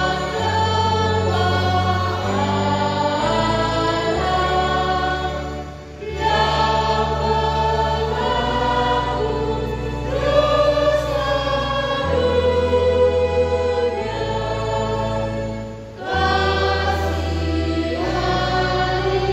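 A large church choir singing a hymn in parts over held low accompaniment notes that change every second or two. The singing dips briefly twice between phrases, about six and sixteen seconds in.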